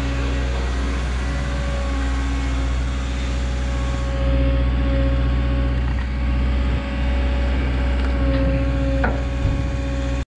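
Diesel engine of a Caterpillar 317 excavator running steadily under work, with a steady high whine over the low engine drone. The sound cuts off abruptly near the end.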